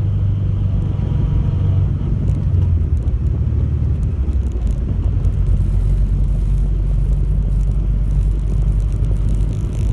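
Subaru Impreza wagon running on the move, its engine note dropping about two seconds in and giving way to a steady low rumble. The car is making the abnormal noise its owner is demonstrating.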